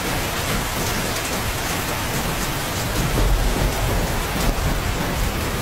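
Heavy hail falling, the hailstones pelting the street and a parked car in a dense, steady patter.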